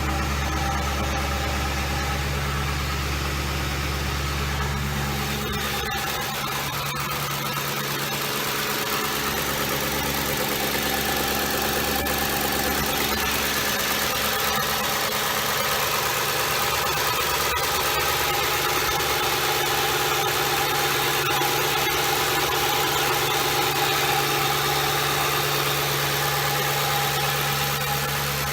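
2007 Ford Crown Victoria's 4.6-litre V8 idling steadily on a test run after misfire repair work. A strong low hum under the idle drops away about six seconds in.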